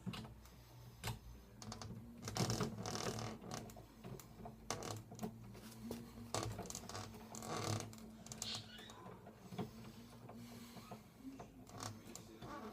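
Screwdriver turning a screw into the mounting of a loose doorknob to tighten it: irregular clicks and short scraping sounds, over a low steady hum.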